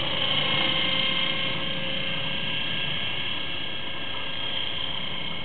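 Electric radio-controlled model helicopter with a Schweizer 300C scale body flying overhead. Its motor and rotor give a steady high-pitched whine over a rushing noise, a little louder in the first second or so.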